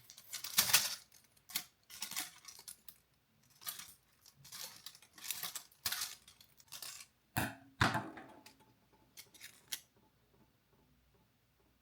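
A series of short, irregular clicks and rustles of small objects being handled, about a dozen in all, louder at the start and about eight seconds in.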